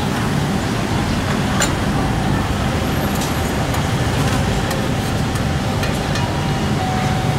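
Steady low rumble of street traffic, with a few light, sharp clicks scattered through it.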